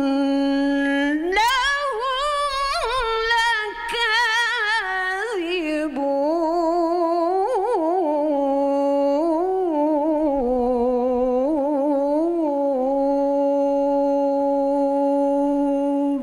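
A woman reciting the Quran in melodic tarannum style, one voice through a microphone. After a first held note, her pitch leaps up into a run of ornamented phrases with vibrato. About six seconds in she comes back down to the lower register and ends on a long, steady held note that stops right at the end.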